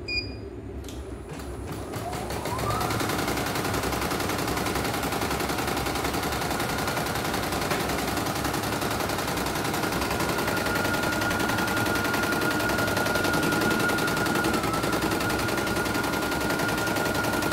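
CNY E900 computerised embroidery machine starting to stitch: a single key beep, then its motor whine rises over about a second as it speeds up. It settles into a fast, even needle clatter with a steady high whine, running normally after a mainboard replacement.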